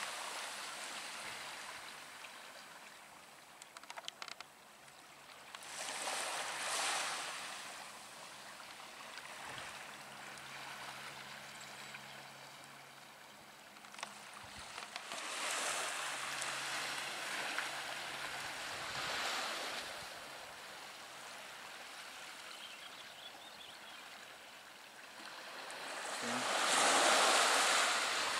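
Small waves washing onto a nearby shore: a hissing surge that swells and fades every several seconds, the largest near the end.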